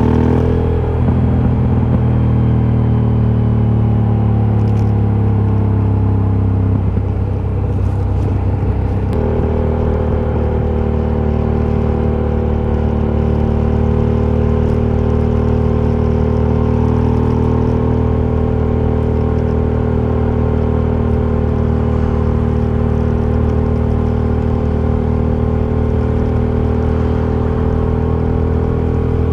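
Aprilia Shiver 750's V-twin engine running through its stock exhaust. The pitch drops at the start and the note is unsettled for a couple of seconds about seven seconds in. It then holds a steady engine note that creeps slowly higher.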